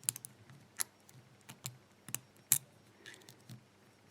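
Lock pick and tension wrench working inside a cheap bike lock's slider core: small irregular metallic clicks and ticks as the pick is twisted against the sliders, the loudest about two and a half seconds in.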